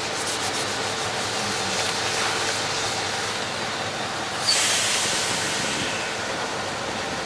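Heavy all-terrain mobile crane running with a steady mechanical rumble. About four and a half seconds in comes a sudden loud hiss of compressed air, like an air brake releasing, which fades away.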